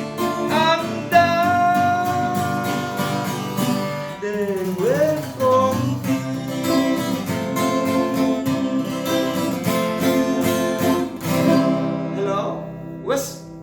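Acoustic guitar strumming under a singing voice holding long, bending notes on the song's closing line; the music trails off near the end.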